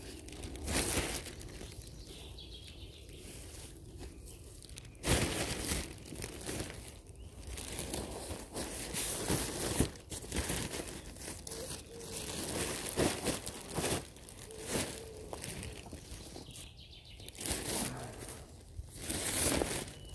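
Thin plastic rubbish bag crinkling and flapping as it is shaken open and stuffed with old clothes, in irregular bursts, the loudest about five seconds in and near the end.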